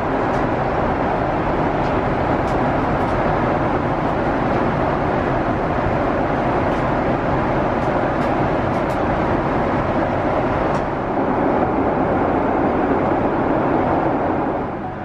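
Steady in-flight cabin noise inside a Boeing 777-300ER: the even hiss and rumble of airflow and engines, with a few faint light clicks.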